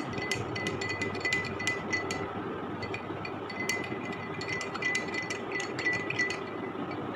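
Metal teaspoon clinking against the inside of a glass tumbler in quick, irregular taps while stirring salt into water to dissolve it, over a steady faint hum.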